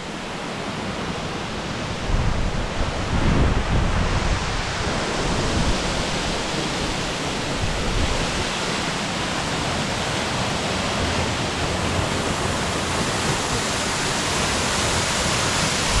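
Gveleti waterfall's water falling onto the rocks of its basin, heard close up as a constant rush that grows louder about two seconds in.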